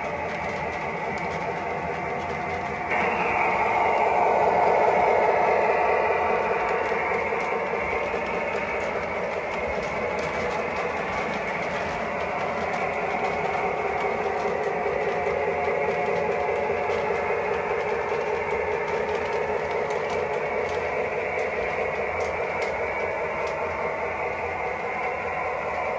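Lionel O gauge electric train running on three-rail tubular track: a steady rumble of metal wheels rolling over the rails, growing louder about three seconds in and then easing off.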